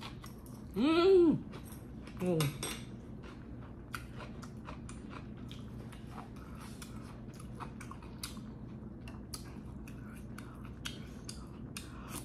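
A woman eating: two closed-mouth hums of enjoyment, rising then falling in pitch, about a second in and again near two and a half seconds, then chewing and small mouth sounds with light clicks of utensils against the dish.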